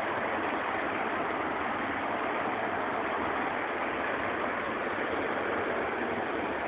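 Steady, even drone of a helicopter flying over, with no clear beat.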